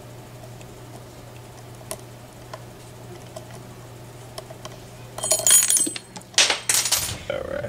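Lock pick and tension wrench working the pins of a Mako M2 interchangeable-core padlock: faint small metallic ticks, then about five seconds in a louder run of metal scraping and rattling in the keyway as the pick is pulled out and the tools are shifted.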